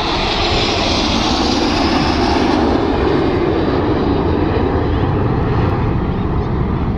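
Jet engines of a formation of six aerobatic jets passing by: a loud, steady rushing jet noise that swells as it begins, its higher hiss easing off about halfway through.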